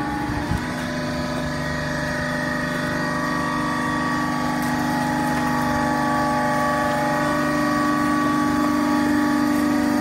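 Hydraulic power unit of an HPAC80 horizontal baler running: a steady motor-and-pump hum with a held whine above it, growing slightly louder.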